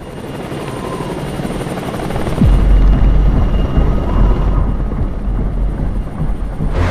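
Helicopter rotor and turbine running, a dense chopping noise that grows louder. About two and a half seconds in, a sudden deep boom drops in pitch and a heavy low rumble carries on.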